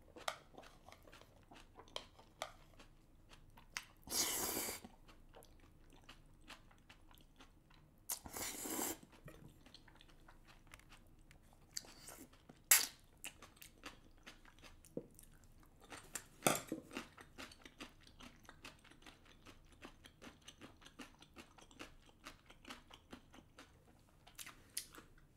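Close-miked chewing and wet mouth sounds of someone eating spicy black bean rice cakes and noodles. There are a few longer slurps about four and eight seconds in, and a sharp click near the middle.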